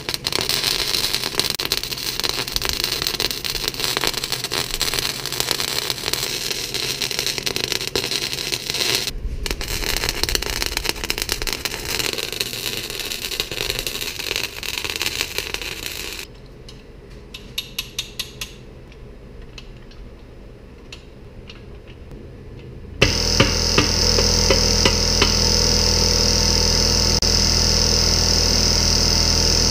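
Wire-feed (MIG) welder arc crackling steadily in long beads, with a brief break about nine seconds in, stopping about sixteen seconds in; a few short clicks follow. Near the end a loud, steady mechanical hum with a high whine starts suddenly.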